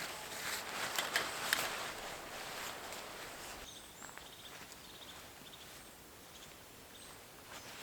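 Rustling and crunching of someone moving about, with a few sharp clicks, dying away after about three seconds into quiet outdoor background with faint high chirps.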